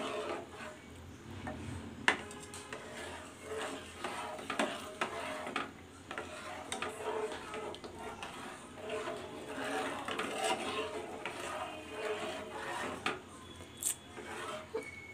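Steel spatula scraping and stirring milk in a nonstick frying pan, irregular rubbing strokes against the pan with a couple of sharper clicks.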